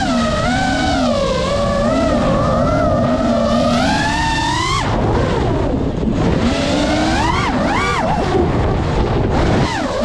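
FPV racing drone's brushless motors whining, the pitch rising and falling with the throttle. It climbs steadily to a peak about five seconds in, drops off sharply as the throttle is cut, then surges in two quick punches a couple of seconds later.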